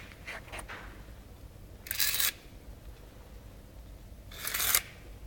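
Pencil drawn along the edge of a voussoir template on a brick, marking it for cutting: two short scratchy strokes, about two seconds in and again near the end.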